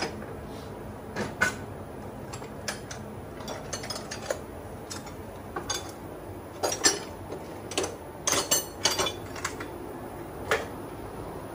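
Irregular metallic clinks and knocks, a dozen or so sharp taps spread unevenly, loudest around the middle, as tools and metal parts are handled.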